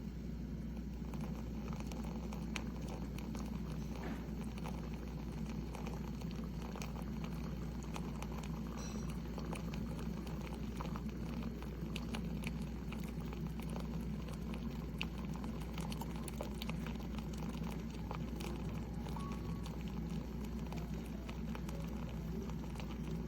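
Single-serve pod coffee maker running with a steady low hum and a constant scatter of small crackling, sputtering clicks, like water heating and bubbling.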